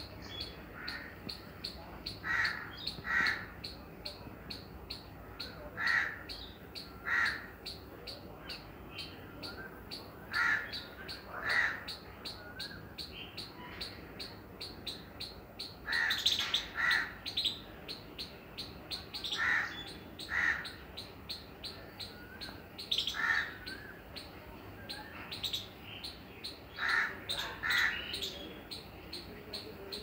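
A crow cawing, usually two caws about a second apart, repeated every few seconds, over a squirrel's fast, steady run of high-pitched chip calls.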